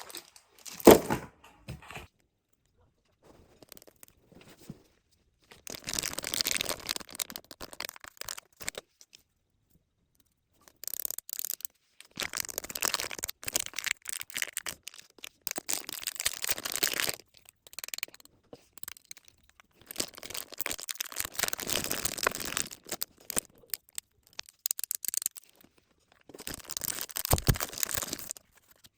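Plastic and paper packaging being torn open and crinkled by hand, in irregular bursts of rustling and tearing with short pauses between them.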